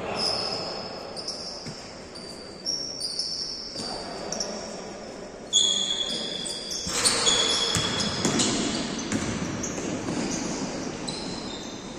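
Indoor basketball game: sneakers squeaking sharply and repeatedly on the court and the ball bouncing, with a loud hit about five and a half seconds in. Players' voices call out in the background.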